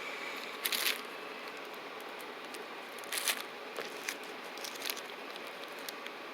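Wrapping of a half brick of firecrackers crinkling and tearing as it is pulled open by hand, in a few short rustles, the clearest about a second in and again about three seconds in.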